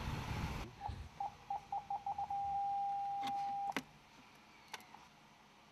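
A car's parking-sensor warning: short beeps coming faster and faster, then merging into one steady tone for about a second and a half, the sign of an obstacle very close to the car. Under a second in, the car's low running noise stops abruptly, and a few faint clicks follow the tone.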